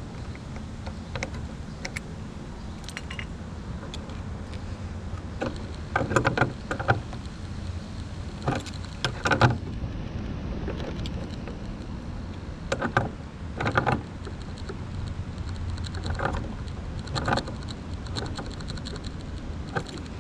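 Metal hand tools clicking and clinking against a model airplane's engine as its fittings are tightened by hand, in irregular clusters of sharp knocks.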